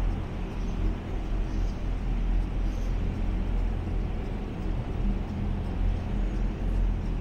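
Steady low rumble inside a moving gondola cable car cabin as it travels along its cable.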